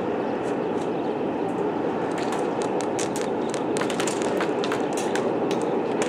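Airsoft guns firing across the field: scattered sharp pops and short quick runs of shots, with a flurry about four seconds in, over a steady noisy background.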